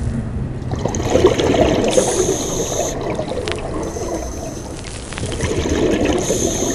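A scuba diver breathing through a regulator underwater: a few breaths, each with a hiss carrying a high whistle, alternating with the bubbling of exhaled air.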